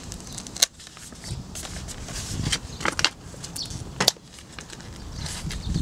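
Fingers handling and picking at a packaged steelbook case: light crackling of plastic with a few sharp clicks, three of them standing out.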